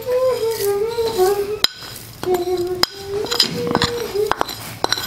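Metal spoon scraping and clinking against a porcelain plate as dried tomato flakes are pushed off it into a ceramic bowl, with several sharp clinks from about a second and a half in.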